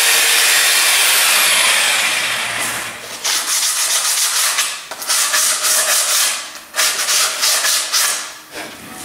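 Electric jigsaw cutting through a wooden board, stopping about two and a half seconds in. Then sandpaper rubbed by hand along the freshly cut edge in quick back-and-forth strokes.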